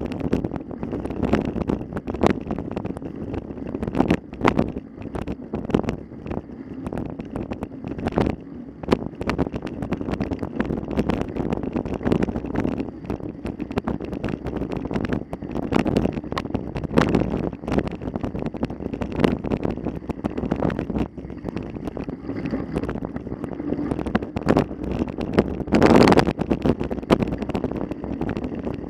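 Wind buffeting the microphone, a rough, fluctuating rush broken by many short knocks and rattles, with a louder burst about 26 seconds in.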